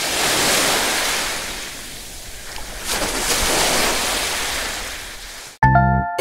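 Rushing sound of ocean waves washing in, swelling twice. It cuts off abruptly near the end as music starts.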